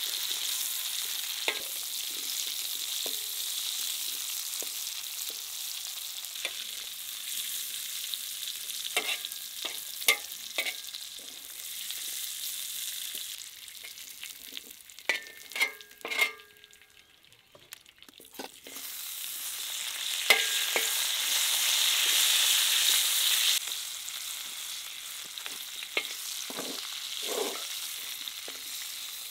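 Chestnuts frying in oil in a shallow black metal pan over a wood fire, sizzling steadily while a metal slotted spatula scrapes and clinks against the pan. About halfway the sizzle drops away for a few seconds with sharp clinks, then it sizzles loudly again as dried plums fry in the hot oil.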